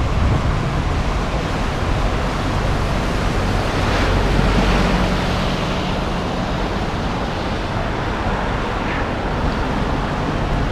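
Wind buffeting the microphone over a steady hiss, as a bicycle rides through the rain on wet roads. A faint low hum swells about four seconds in and fades over the next few seconds.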